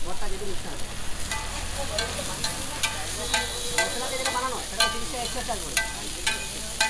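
Chicken and sliced onions sizzling on a large flat griddle (tawa), with a steel spatula scraping and clinking on the griddle about twice a second as it stirs and tosses them.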